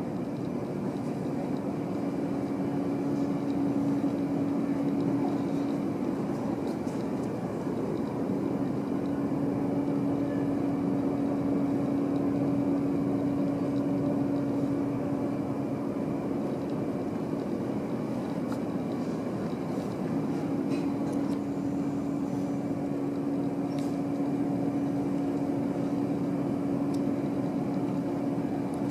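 Steady low hum of a cruise ship's machinery, with a droning tone that swells and fades over several seconds at a time.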